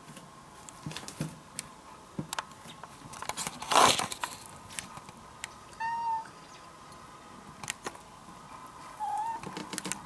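A cat gives two short meows, one about six seconds in and another near the end. Between them come light taps and rustles, and a louder rasping scrape about four seconds in.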